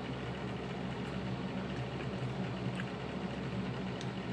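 Steady low room hum, with a few faint mouth clicks from chewing.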